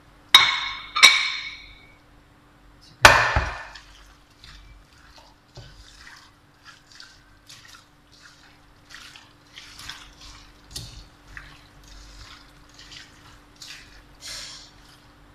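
Three ringing clanks on a metal cooking pot in the first few seconds, the last one the loudest, then a long run of soft wet squishing and small clicks as raw chicken pieces are tipped into the spiced masala and mixed in by hand.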